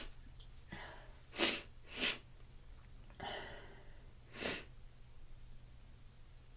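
A person sneezing in short, sharp bursts: two about half a second apart, a fainter breathy sound, then a third about two and a half seconds later.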